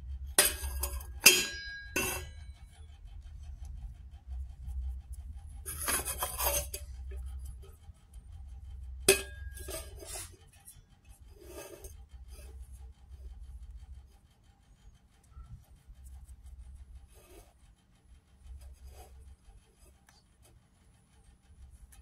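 Sharp clinks and taps of hard objects: a few close together in the first two seconds, a cluster around six seconds and one near nine seconds, then fainter ticks. A low steady hum runs underneath.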